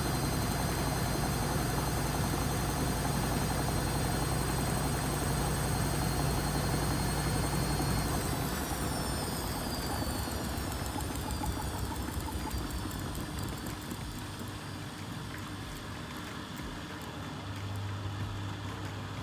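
Vestel washing machine spinning with a steady high motor whine, which after about eight seconds falls steadily in pitch as the drum slows down. A steady low hum comes in near the end.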